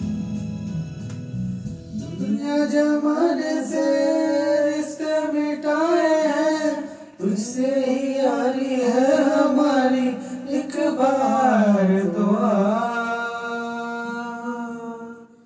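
A man singing a melodic song with vibrato into a handheld microphone over recorded backing music. The voice comes in about two seconds in and ends on a long held note near the end.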